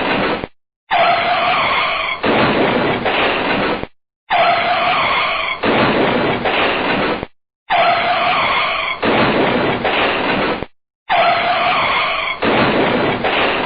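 Car brake and tyre skid sound effect played on a loop: a squeal holding a few steady tones gives way to a rough scraping hiss. It cuts to silence briefly, and the cycle repeats about every three and a half seconds, four times over.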